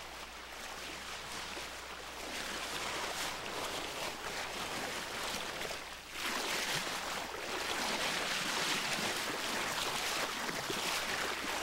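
Water rushing and splashing past a sailboat's hull as it sails through choppy water, a steady hiss that dips briefly about six seconds in.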